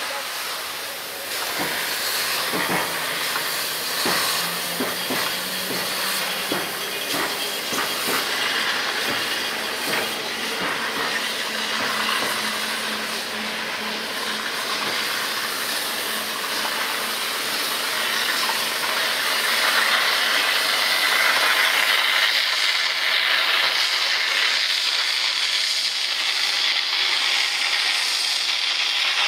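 Steam hissing from ČSD class 354.1 tank locomotive 354.1217 on a depot turntable. A few knocks and a low steady hum come in the first half. The hiss swells louder after about twenty seconds.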